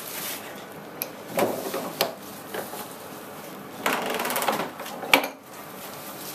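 A board being turned around and re-clamped in a bench vise: several sharp wooden knocks, and two short rough stretches of scraping and rattling as the vise is worked, the second about four seconds in with a quick rattle as the vise is tightened.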